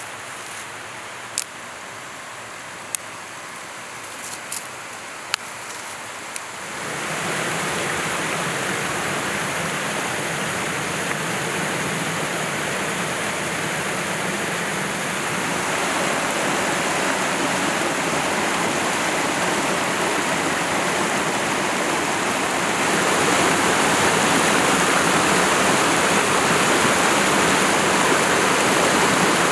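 Several sharp snaps of thin branches being broken by hand. About a third of the way in, a rushing stream cascading over rocks takes over with a loud, steady rush of water, which grows louder again near the end.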